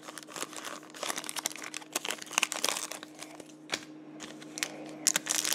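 Foil trading card pack wrapper crinkling as it is torn open and the cards are slid out, in quick irregular crackles that get louder near the end, over a faint steady hum.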